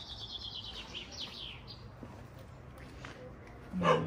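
A songbird sings a fast trill of high notes that slowly falls in pitch, ending in a couple of quick downward-sliding notes. Near the end a dog barks once, louder than the bird.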